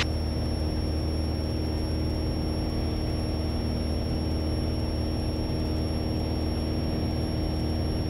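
Piper PA-28 Warrior's four-cylinder Lycoming piston engine and propeller running steadily in cruise, heard as an even cabin drone. A faint high-pitched steady whine sits over it.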